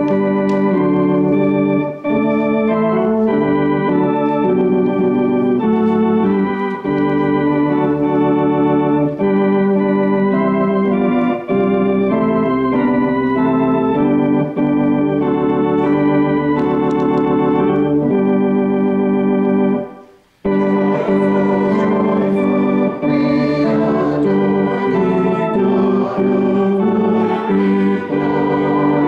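Church organ playing held chords that change every second or two, with a brief break about two-thirds of the way through, after which it resumes with a brighter sound.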